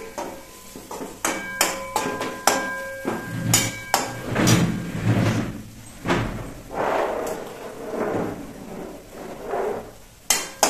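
Steel kitchen utensils clinking: a quick run of sharp metallic clinks with short ringing notes in the first few seconds, then duller knocks and rustling.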